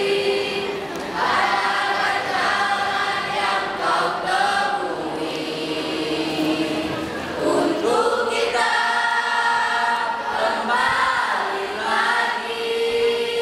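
Mixed choir of women and men singing an Indonesian pop song in harmony, with long held chords that change every second or so.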